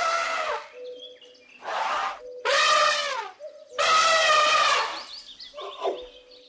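Elephant trumpeting: four loud calls in about five seconds, each under a second long. Birds chirp faintly between and after the calls.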